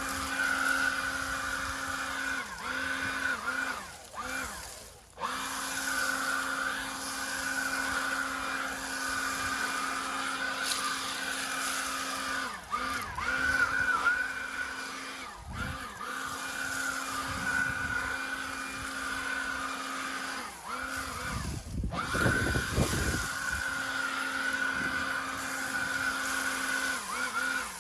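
Ingco cordless leaf blower running with a steady whine, the motor spinning down and back up several times as the trigger is let off and squeezed again. A short burst of rougher noise comes about three quarters of the way through.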